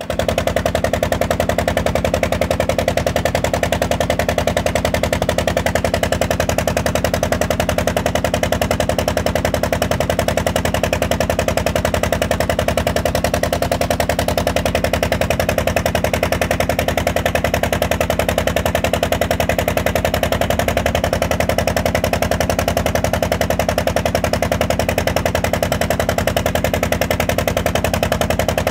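Small ferry boat's engine running steadily at cruising speed, a loud, rapid, even knocking beat that does not change.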